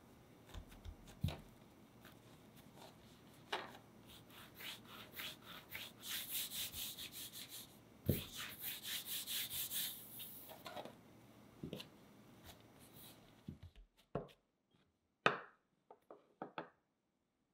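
Palms rolling a piece of milk-bread dough back and forth on a countertop: a run of quick, rhythmic rubbing strokes, with a single thump about eight seconds in. Near the end, a few light separate knocks as the rolling pin comes onto the dough.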